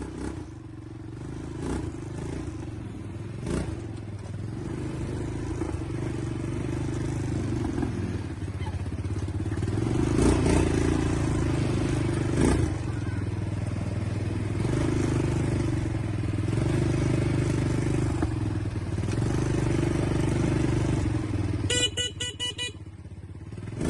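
ATV engine running while being ridden, its pitch rising and falling with the throttle, with a few knocks. Near the end comes a short, rapidly pulsing beep.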